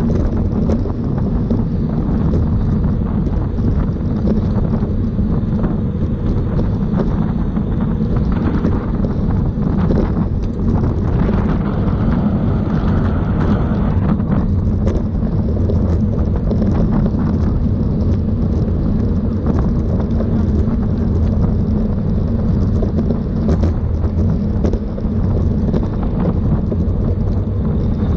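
Steady, heavy wind noise on the microphone of a camera riding along in a bicycle race: a low, continuous rumble, with a little extra hiss about halfway through.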